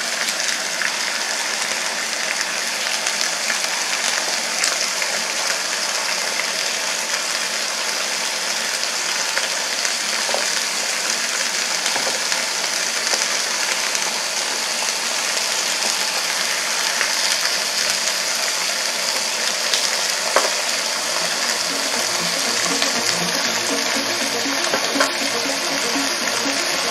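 A large beef rib steak and sliced vegetables sizzling on an electric contact grill: a steady hiss with a few faint pops and crackles.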